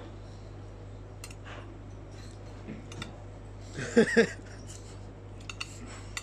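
Light clicks of chopsticks handling food, scattered through and more frequent near the end. About four seconds in, a short voiced 'mm-mm' of approval in two quick pulses is the loudest sound.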